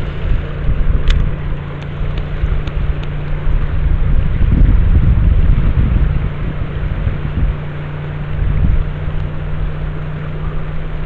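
Wind buffeting the microphone, with a steady low hum underneath. A sharp click comes about a second in.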